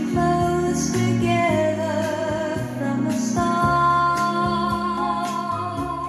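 Recorded music with a singing voice holding notes with vibrato over bass and instrumental accompaniment, played back through a vintage Philips 22RH411 full-range loudspeaker.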